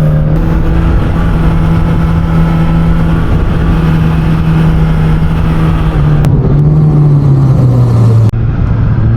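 Suzuki GSX-S1000's inline-four engine running loud through an SC-Project exhaust at a steady, high cruising note. About eight seconds in the sound dips for an instant and the engine note drops lower, as in an upshift.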